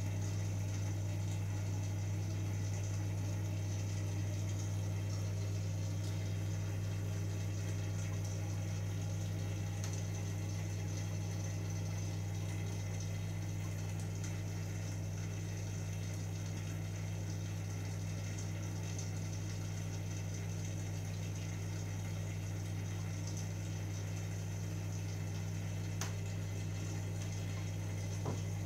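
Aquarium filter pump running: a steady low hum with water bubbling and trickling over it. Two faint clicks near the end.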